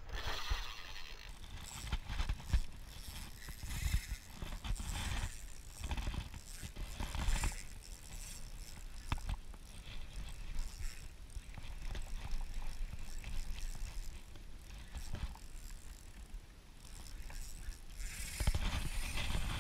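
A Shimano Exsence 3000 spinning reel being cranked in uneven bursts while a hooked fish is reeled in, with knocks, clicks and rubbing of hands and rod close to a body-mounted camera microphone.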